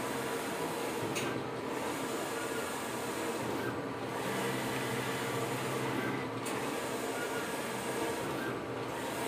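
Large-format flex banner printer running, its print-head carriage shuttling back and forth across the banner. The steady mechanical whir shifts in tone about every two and a half seconds.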